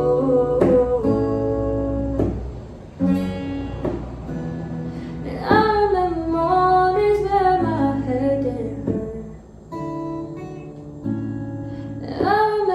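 A solo singer performing a pop song over strummed acoustic guitar, holding long sung notes between lyric lines.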